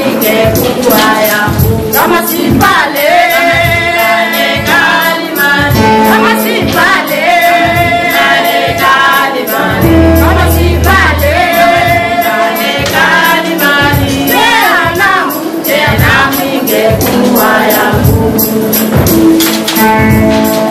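Gospel praise song: a group of women singing together over a steady beat with tambourine.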